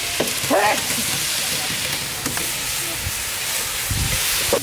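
Spice paste sizzling and hissing steadily in a large pan of hot oil as sliced tomatoes are tipped in and stirred, with a dull knock about four seconds in.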